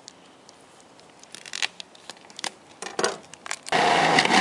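Knife and hand-handling clicks and knocks as a block of almond-based cheese alternative is cut and fed into a food processor. About three and a half seconds in, the food processor's motor starts with a sudden loud grinding as it processes the cheese.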